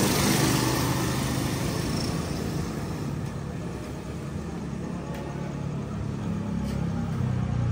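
A motor vehicle engine running steadily, easing off around the middle and growing louder again near the end.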